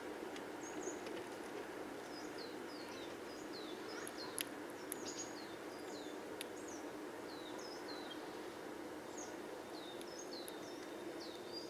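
Small songbirds calling: many short, high, down-slurred chirps in quick, irregular runs, over a steady low background hum, with a few sharp clicks.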